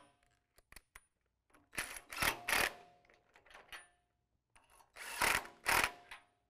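Cordless power tool with an 18 mm socket running bumper bolts down, in two short buzzing runs about three seconds apart, with a few light clicks of the socket on the bolt before the first.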